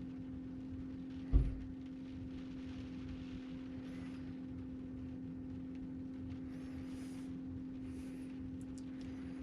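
A steady low electrical hum, with a single dull thud about a second and a half in.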